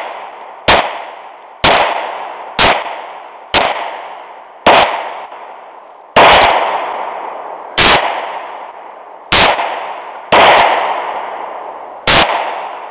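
Taurus 917C 9mm semi-automatic pistol fired shot after shot, about ten rounds at a steady pace of roughly one a second. Each shot is a sharp crack followed by a long echoing tail.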